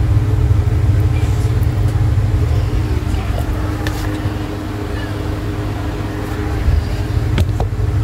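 A steady low rumble with a faint hum over it, like a running motor or fan, broken by a few sharp clicks.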